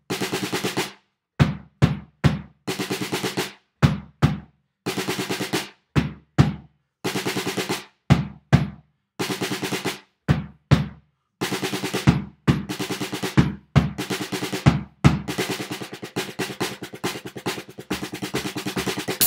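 Drum kit with a practice pad in place of the snare, played without backing music. Short blocks of fast, rapid strokes alternate with single hits and brief gaps, and the playing turns almost continuous in the last few seconds.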